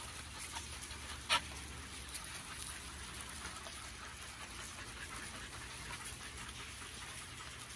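Dogs moving about on loose pea gravel: faint scattered paw steps over a steady low rumble, with one short, sharp sound about a second in.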